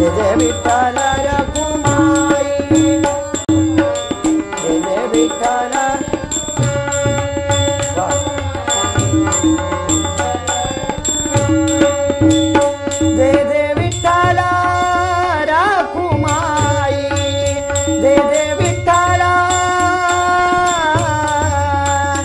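Marathi devotional bhajan: harmonium melody over a steady tabla rhythm, with small hand cymbals ringing on the beat and a voice singing in places.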